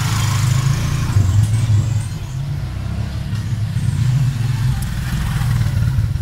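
A motor vehicle engine running, a low rumble that holds through and begins to ease off near the end.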